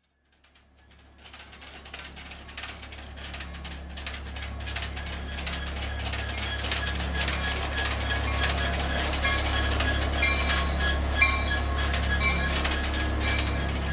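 Freight train passing: wheels clacking in a rough rhythm over a steady low rumble, growing louder over the first half and then holding.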